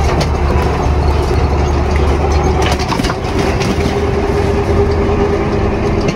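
Military truck running, heard from inside its canvas-covered cargo bed: a steady low engine rumble with the body knocking and rattling, and a steady whine joining about halfway.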